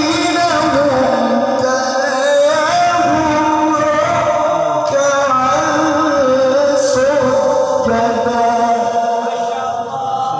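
A male qari reciting the Qur'an in melodic tilawah style, drawing out long, ornamented notes that waver in pitch.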